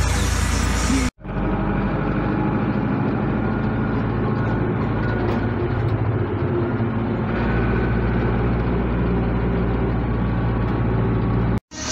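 Zetor tractor's diesel engine running steadily, heard from inside the cab, broken by two brief gaps where the sound cuts out.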